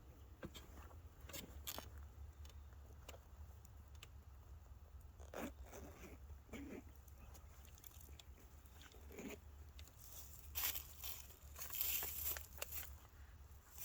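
Faint scattered crunching and rustling, with a few sharp clicks, over a low steady rumble; a louder cluster of rustles and crunches comes about ten to thirteen seconds in.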